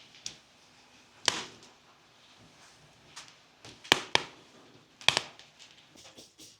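Scattered sharp clicks and knocks against quiet room tone: one loud knock about a second in, two close together near four seconds, another just after five seconds, and smaller ticks between.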